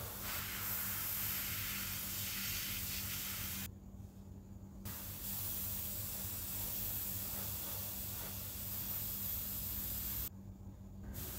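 Paint spray hissing in two long bursts, the first about three and a half seconds and the second about five, each cutting off abruptly, over a low steady hum.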